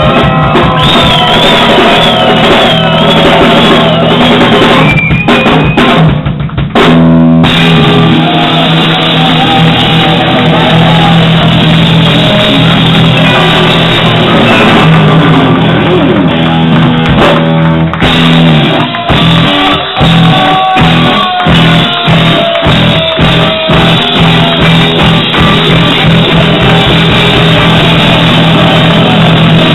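A live rock band plays an instrumental passage on electric guitars, bass guitar and drum kit. A high wavering note sounds near the start. About two-thirds of the way through, the band plays a run of short, separate accented hits with breaks between them, then settles back into steady playing.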